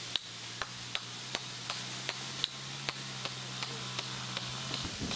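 Sharp, evenly spaced clicks, about two and a half a second, over a steady low hum that stops shortly before the end.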